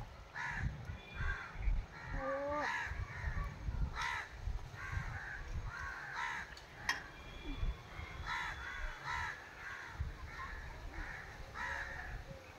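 Crows cawing again and again, roughly one call a second.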